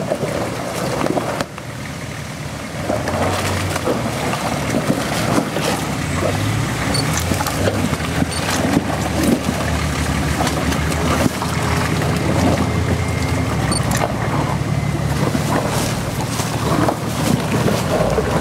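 Nissan Patrol 4x4's engine working under load as it crawls over rocks and mud on a steep trail; the low engine drone grows louder about three seconds in. Scattered knocks and crunches come from the tyres rolling over stones and roots.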